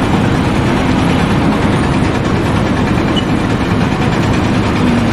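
A heavy engine running steadily at an even, loud level, with a faint steady hum over it.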